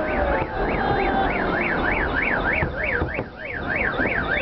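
A car alarm siren wailing up and down in pitch, about three sweeps a second, over the rumble and bangs of a fireworks display and crowd noise.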